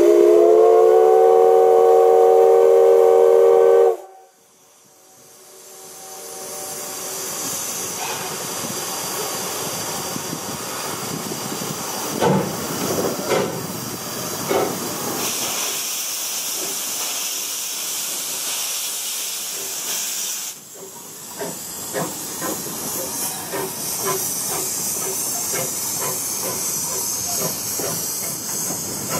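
The C10 8 steam tank locomotive's whistle sounds one long blast of about four seconds, a chord of several tones that cuts off sharply. After a brief lull the locomotive starts away with its train, hissing steam and exhaust as it pulls out, with a brighter hiss for a few seconds past the middle.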